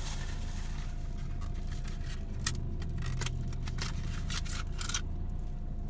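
Paper or cardboard pie packaging rustling and crinkling in irregular bursts as it is opened, over a steady low hum.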